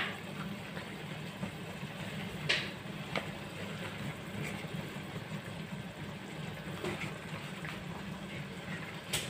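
A steady low hum in the room, with a few light knocks or clicks: two close together about two and a half and three seconds in, and one near the end.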